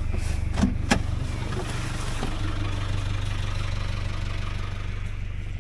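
Farm vehicle's engine running steadily while the vehicle is stuck in a muddy bog, with a couple of short knocks about half a second and a second in.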